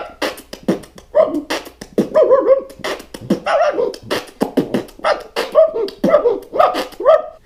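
A man beatboxing with his mouth: rapid sharp clicks and percussive hits interleaved with short, bending pitched vocal sounds, which stop just before the end.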